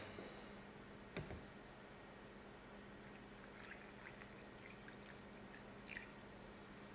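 Water pouring faintly in a thin stream from a large plastic bottle's spout into a glass, with a single click about a second in.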